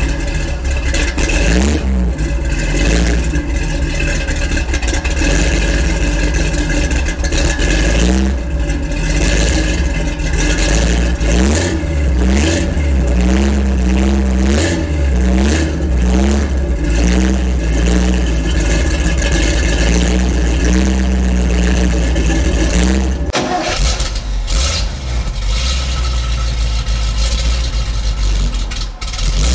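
Chevrolet 366 four-barrel big-block V8 of a 1987 GMC 7000 truck, just started, running through headers, dual 3-inch pipes and TotalFlow two-chamber mufflers. It idles and is revved in a series of short throttle blips. About 23 seconds in, the sound switches abruptly to the same engine running through its old exhaust.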